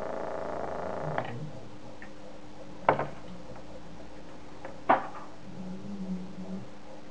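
Homemade Geiger counter clicking twice, two sharp pops about two seconds apart, each a single detection of background radiation. In the first second there is a short buzzy noise ending in a lighter click while the wiring is handled.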